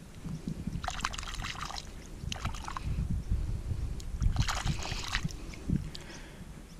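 Shallow water sloshing and splashing in three short bursts as a hand swishes a found spark plug through it to rinse it, over a low steady rumble.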